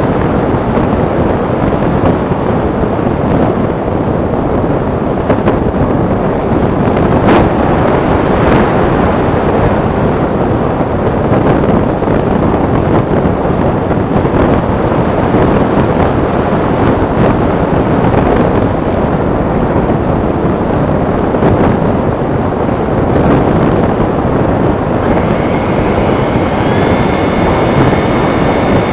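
Wind rushing over the microphone of a camera riding on a foam electric RC motor glider in flight, a loud, steady rush with a couple of brief clicks. Near the end a high, thin whine from the glider's electric motor comes in.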